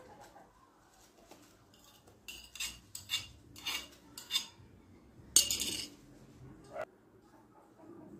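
A metal spoon scraping and tapping against a china plate as grated apple is scraped off it, in a run of short scrapes, with a louder clatter about five seconds in.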